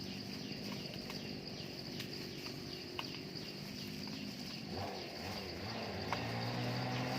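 Steady high-pitched insect chirring, with scattered light clicks and faint rustling over it.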